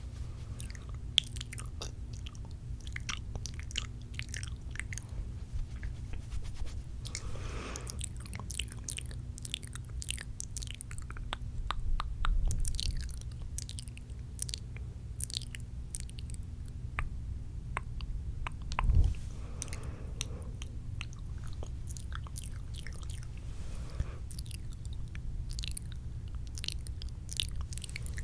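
Close-miked wet mouth sounds: spitty clicks and smacks in a quick, irregular stream over a steady low hum, with a couple of soft low thuds against the microphone.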